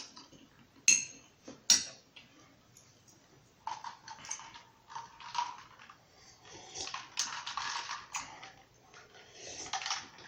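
Eating sounds: a utensil clinks sharply against a dish twice, then a stretch of chewing and mouth noises.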